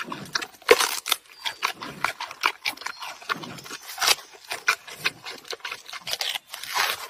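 Giant panda biting into and chewing a bamboo shoot: a run of irregular crunches and cracks, with sharper snaps about a second in and about four seconds in.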